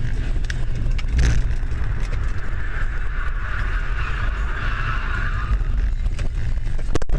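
Car driving at speed, heard from inside the cabin: a steady low road and engine rumble, with a sharp knock about a second in. From about two and a half seconds a hissing rush rises and fades again as the tyres run off the tarmac onto the dirt and grass verge, and a sharp click comes near the end.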